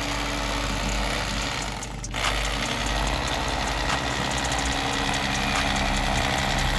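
Electric fillet knife running with a steady motor hum as its blade cuts through a speckled trout, dipping for a moment about two seconds in.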